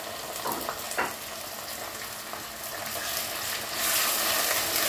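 Minced mutton and onion sizzling in hot oil in a clay pot, stirred with a wooden spoon. There is a short knock of the spoon about a second in, and the sizzle grows louder a little under four seconds in as the mince is stirred.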